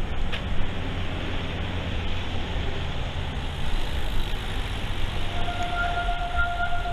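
Wind buffeting the microphone of a bicycle-mounted action camera, with road noise from riding fast on wet asphalt. About five seconds in, a steady high tone comes in and holds.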